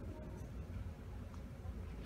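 Quiet room tone of a large indoor hall: a steady low hum with a few faint ticks.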